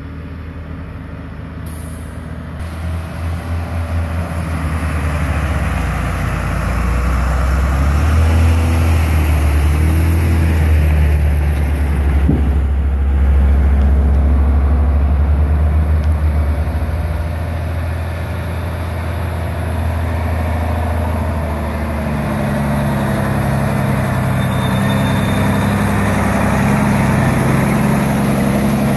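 Diesel engine of a loaded log truck approaching and passing close by: a deep, steady rumble that grows louder over the first several seconds, its note rising somewhat as the truck comes alongside.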